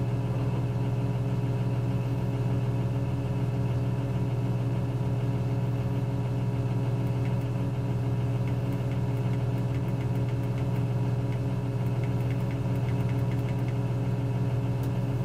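Motor grader's diesel engine idling steadily, heard from inside the cab as a constant low hum.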